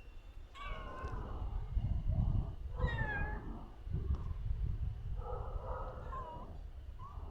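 Stray cat meowing several times, with separate drawn-out calls that bend in pitch, over a low rumble.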